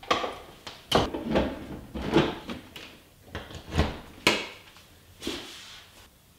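A string of sharp knocks and clatters, about eight in all, from a 3D-printed plastic picture frame and its power cable being handled against a wall, dying away near the end.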